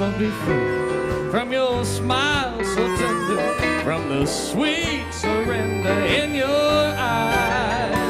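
Western swing band playing an instrumental break, a harmonica taking the lead with a wavering, bending melody over guitars, bass and drums.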